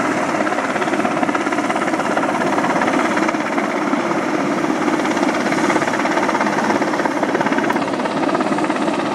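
Sikorsky helicopter hovering: loud, steady rotor and turbine noise with a fast, even beat from the blades.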